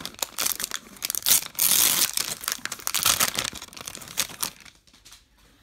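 Plastic wrapper of a 2019 Topps Gallery value rack pack crinkling and tearing as it is opened by hand. Loudest about a second and a half in, then dies away about four and a half seconds in.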